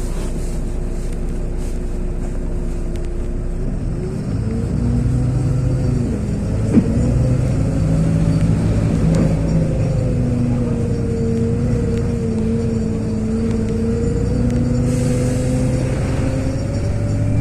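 Interior sound of a LiAZ 6213.22 articulated city bus: the diesel engine runs steadily for about four seconds, then the bus pulls away and a whine rises in pitch as it gathers speed and holds at cruising speed. A single sharp click about seven seconds in.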